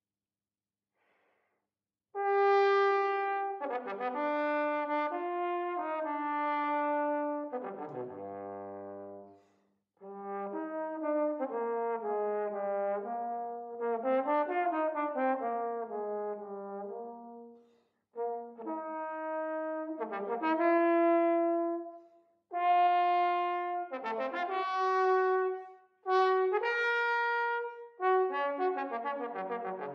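Tenor trombone played solo, starting about two seconds in: sustained and slurred notes in phrases broken by short breaths, dipping to a low note around eight seconds in and ending in a run of quick notes.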